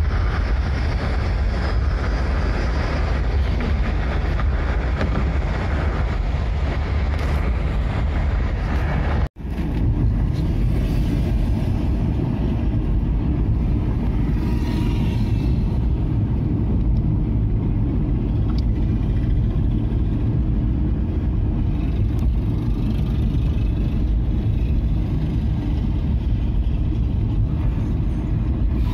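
Steady road and engine rumble heard from inside a moving car, with wind and tyre hiss at highway speed at first. After a split-second dropout about nine seconds in, the rumble goes on duller and with less hiss as the car rolls slowly.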